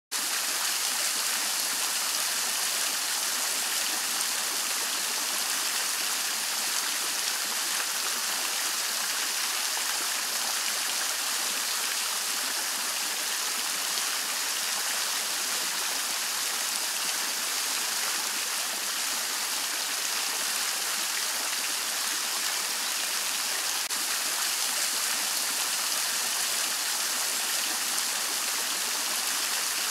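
Henri Studio three-tier Renaissance fountain running, water spilling over each tier and splashing down into its Grando basin. A steady, even splashing with no change.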